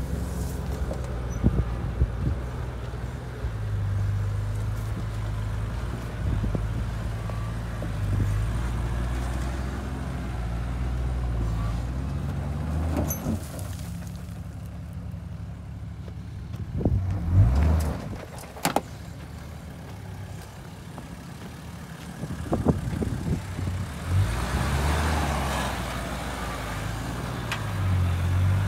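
Toyota 80 Series LandCruiser engine working at varying revs as the four-wheel drive pushes through deep soft sand, its wheels spinning and throwing sand. A few sharp knocks come a little past halfway.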